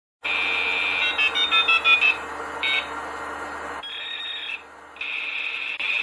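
Electronic beeping: a quick run of short beeps of changing pitch over a steady high-pitched tone, with a low hum underneath that stops about four seconds in.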